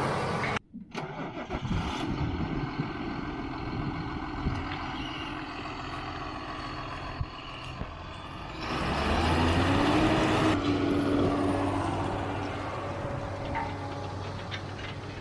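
John Deere 6530 Premium tractor's diesel engine running. It cuts out sharply for a moment just under a second in, then rises in revs about nine seconds in before settling to a steady run.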